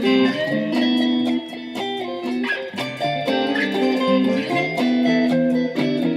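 Music: a guitar playing a fast line of quickly changing single notes, with a pitch bend about four and a half seconds in.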